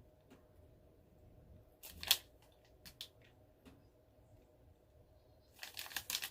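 Faint clicks and mouth smacks of someone chewing a piece of crispy biscuit chocolate: a sharp click about two seconds in, a couple of small ones after, and a quick run of them near the end.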